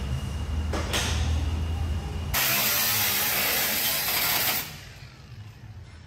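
A cordless power tool cutting into the edge of an aluminium truck tray, a loud harsh hiss lasting about two seconds that stops sharply. Before it, a steady low rumble.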